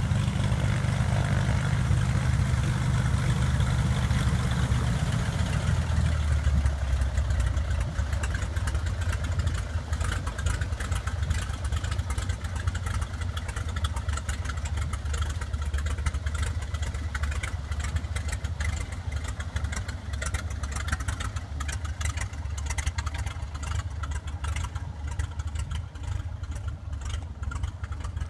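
Cessna 206 floatplane's piston engine and propeller idling as it taxis in on the water. About five seconds in the engine note drops to a lower, steadier idle, and it grows a little fainter near the end.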